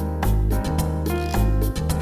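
Background music with a steady beat: a bass line and piano-like keyboard chords over regular percussion.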